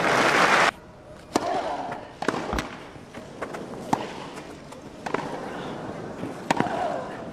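A burst of crowd applause that cuts off suddenly less than a second in. It is followed by a tennis rally on a grass court: crisp racket strikes on the ball, roughly one every second or so, with a player's grunt on some shots.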